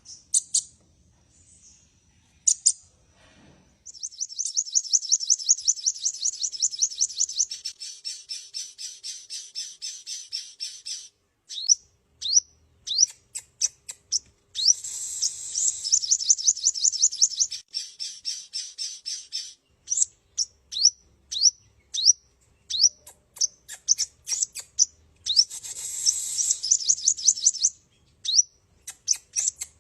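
A sunbird singing: sharp, high single chirps at intervals, broken three times by long, fast trills of high, quickly falling notes, the first running about seven seconds.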